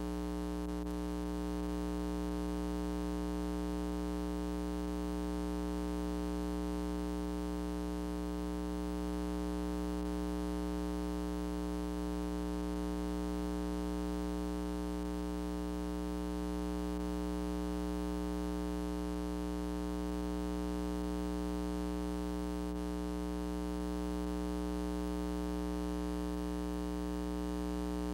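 Steady electrical mains hum with a buzzy stack of overtones, unchanging throughout, over faint tape hiss.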